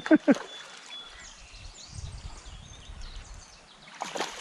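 Creek ambience: faint running water and a few short bird chirps. A low rumble comes in the middle, and a burst of splashing about four seconds in, likely from the hooked smallmouth bass.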